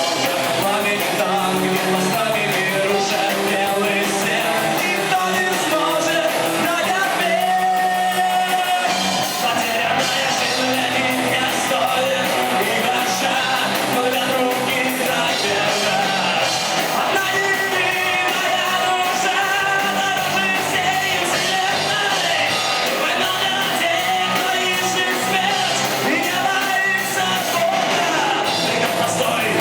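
A rock band playing live, with a singer shouting and singing over guitars and drums.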